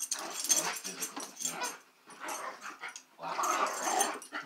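Two dogs play-fighting, growling in irregular bursts with short pauses between them.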